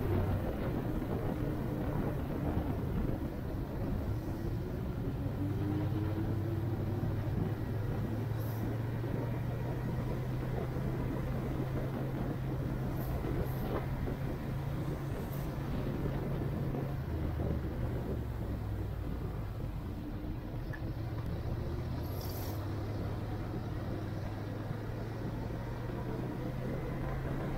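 Motor vehicle engine running steadily on the move, a low hum that dips in pitch for a few seconds in the middle and then climbs back.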